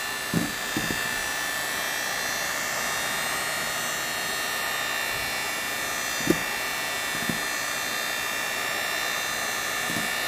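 Electric hand mixer running steadily with a constant whine as its wire beaters whip egg, oil and sugar batter, with a few brief low thuds along the way.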